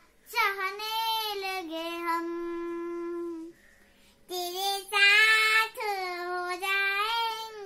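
A young girl singing in a high voice. She holds one long, steady note, breaks off briefly, then sings on in rising and falling phrases.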